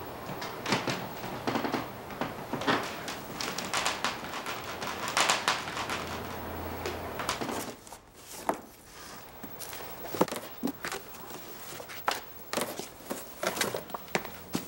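Paper and small objects being handled and shuffled: an irregular run of rustles, crinkles and sharp clicks, easing off briefly about halfway through.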